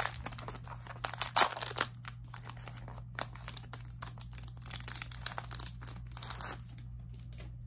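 Plastic wrapping crinkling and tearing as a packet of album merchandise is handled and opened: dense crackles, busiest in the first two seconds, thinning out and stopping about six and a half seconds in.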